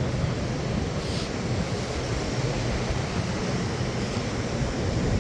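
Wind buffeting the phone's microphone over the steady rush of surf.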